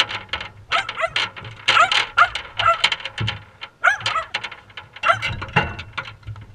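A dog whining and yipping in a quick string of short calls that rise and fall in pitch, with sharp clicks in between.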